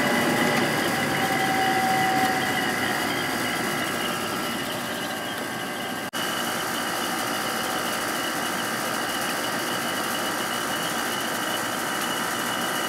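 1997 Sharp 8,500 BTU window air conditioner running: the fan blowing air through the coil over the steady hum of its Matsushita rotary compressor, with several steady tones on top. The sound cuts out for an instant about six seconds in, then carries on unchanged.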